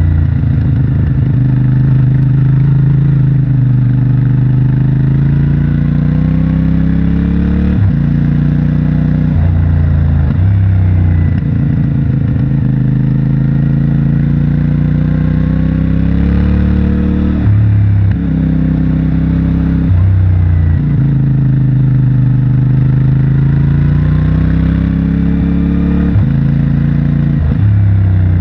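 CFMOTO 450MT's parallel-twin engine on its stock exhaust, heard from the rider's seat while riding. The revs rise and fall every few seconds through the bends, and the pitch jumps sharply several times at quick gear changes.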